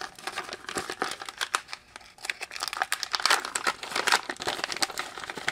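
Static-shielding anti-static bag crinkling as its seal is torn open and the bag is handled, with a short lull about two seconds in.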